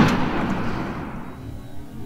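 Rolling echo of a turkey hunter's shotgun blast, fading away over about two seconds.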